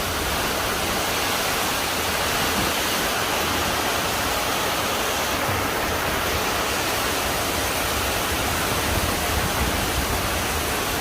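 Heavy rain falling: a loud, steady hiss with a low rumble underneath, starting and stopping abruptly.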